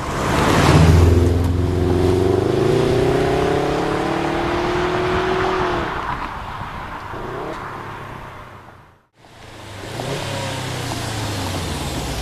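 Subaru Impreza WRX STI's turbocharged flat-four engine accelerating through an HKS Super Turbo Muffler exhaust as the car approaches, its pitch climbing steadily for about six seconds and then dropping away. After a brief break about nine seconds in, the exhaust is heard again, running more steadily as the car draws close.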